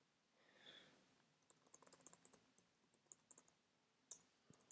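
Faint keystrokes on a computer keyboard: a quick run of taps about a second and a half in, then a few scattered ones. A soft, short hiss comes just before the typing.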